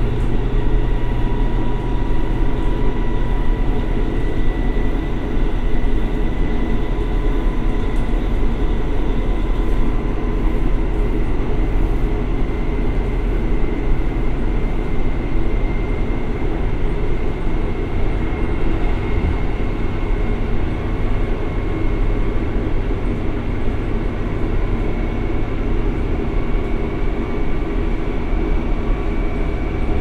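KiHa 183-series diesel railcar's DML30HSI V12 diesel engine working under power in direct drive, heard from inside the car's vestibule, over steady rail and running noise. A whine climbs slowly in pitch as the train gathers speed.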